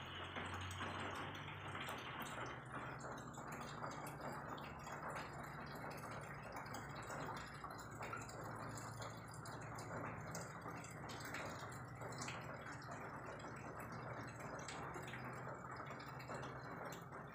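Small wet licking clicks and ticks of a kitten grooming and mouthing an adult cat's head, over a steady low hum and hiss.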